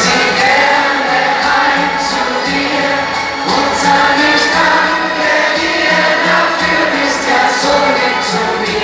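Live German Schlager ballad: a male singer singing into a microphone over a band.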